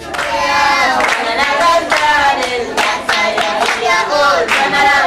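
A group of children singing together while clapping their hands to a steady beat.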